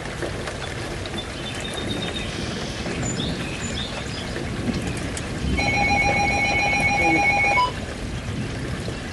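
Hiss of weather-radio static, then about five and a half seconds in a loud, rapidly pulsing electronic alert beep from a weather alert radio for about two seconds, signalling an incoming warning.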